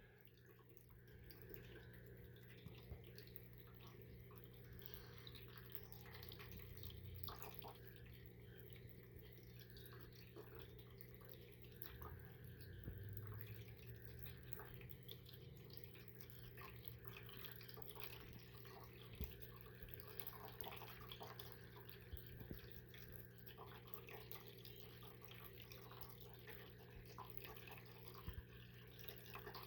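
Faint trickle and drip of a PetSafe pet water fountain, with a low steady hum and scattered soft ticks.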